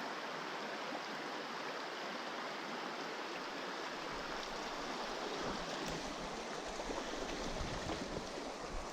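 Mountain stream water rushing steadily, with an uneven low rumble joining from about halfway through.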